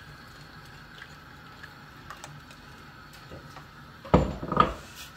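A plastic ladle knocking and scraping against a nonstick frying pan in a short loud cluster about four seconds in, as a pudding mixture is stirred into hot milk. Before that, only a low steady hum with a few faint ticks.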